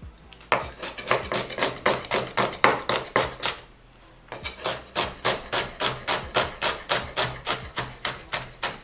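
Kitchen knife finely chopping a white onion on a wooden cutting board: quick, even knocks of the blade on the board, about five a second, with a brief pause about three and a half seconds in.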